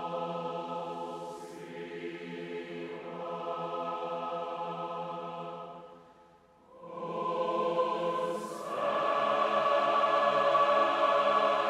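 Massed choir singing slow, sustained chords. The singing breaks off briefly about six seconds in, then the next phrase enters and swells louder.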